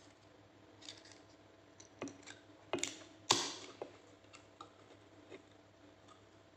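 Aluminium Coca-Cola can being handled, with a few light clicks and taps. About three seconds in comes a sharp crack and a short fizz as the pull tab opens it, then faint ticks of the tab and fingernails.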